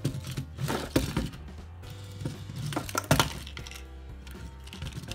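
Background music with a steady beat, over sharp plastic knocks and clatter of a K'nex toy monster truck landing and tumbling on a tabletop, loudest about a second in and again about three seconds in.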